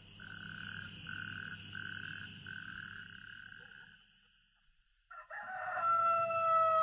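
Radio-drama sound effect. A high, steady call in four long pulses fades away. Then, about five seconds in, a rooster crows once, long and loud, signalling daybreak.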